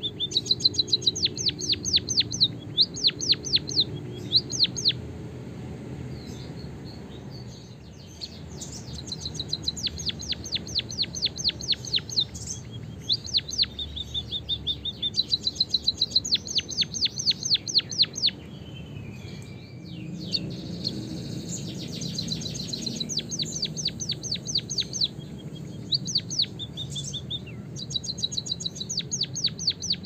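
White-headed munia singing: repeated trains of thin, high, quickly falling chirps at about five a second, broken by short steady high whistles, with brief pauses between phrases.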